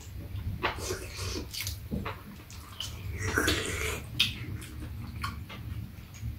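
Two people eating soup: slurping broth off metal spoons and chewing, with light clicks of spoons and chopsticks against the bowls, the sharpest about four seconds in. A low steady hum runs underneath.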